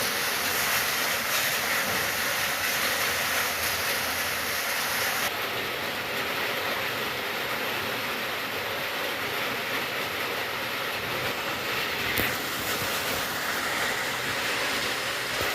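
Steady rain falling, an even hiss, with a single sharp tap about twelve seconds in.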